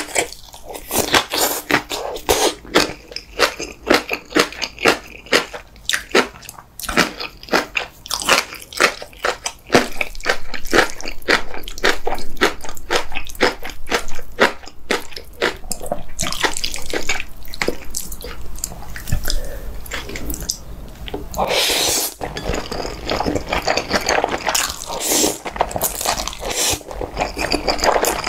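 Close-miked wet chewing and crunching with many quick mouth clicks, then several long noodle slurps in the second half as black-bean-sauce noodles are sucked up from chopsticks.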